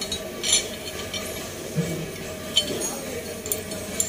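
Steel drag bar parts of a power weeder clinking and knocking against each other as they are handled and fitted together, with several sharp metallic clinks spread through.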